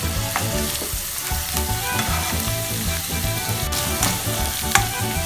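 Chopped onions and garlic sizzling in hot olive oil in a frying pan as they sauté, with a few sharp clicks of a utensil stirring against the pan.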